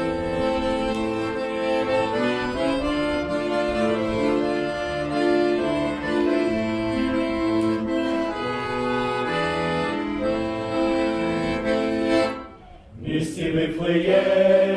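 Instrumental introduction of sustained chords that change about once a second. It breaks off briefly about twelve and a half seconds in, and then a men's vocal group begins singing a Ukrainian Christmas carol (koliadka).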